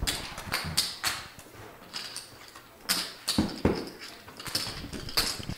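Poker chips clicking together as players stack and handle them: an irregular run of sharp, short clicks with a slight ring, and a few duller knocks on the table.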